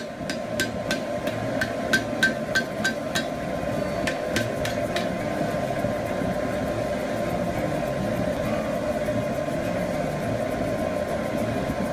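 Hand hammer striking a white-hot steel spear socket on an anvil while forge-welding it, about three sharp blows a second for the first three seconds. A few more blows come around four to five seconds in, then the hammering stops.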